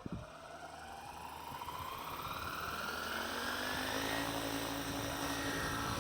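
Custom Comet EVO RC helicopter's electric Xnova motor and rotor spooling up: a whine that rises steadily in pitch and grows louder over about four seconds, then holds steady at speed. A short knock comes right at the start.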